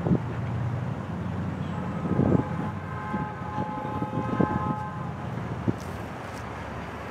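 A heavy truck's engine rumbling as it crosses the railroad tracks, with several loud clunks. In the middle, a distant train horn sounds a steady multi-note chord for about two seconds.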